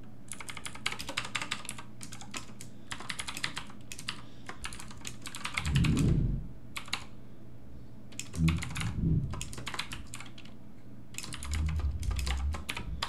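Typing on a computer keyboard in quick bursts of keystrokes with short pauses between them. A few brief low sounds come in between, the loudest about six seconds in.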